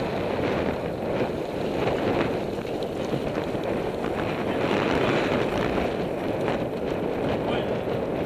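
Wind rushing over the microphone of a camera on a moving bicycle, mixed with tyre noise and short rattles and knocks from the bumps of a rutted dirt road.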